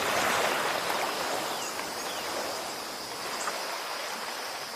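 Sea surf washing in a steady rush, a little louder in the first second and then easing off, with a faint thin high tone running above it.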